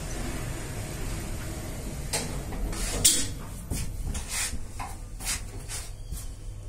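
Passenger lift running with a steady hum that ends after about two seconds, followed by a series of clicks and knocks as the car's glass flap door is unlatched and swung open.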